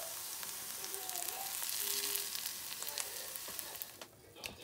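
Sliced mushrooms and onions sizzling in a frying pan. The sizzle drops away about four seconds in.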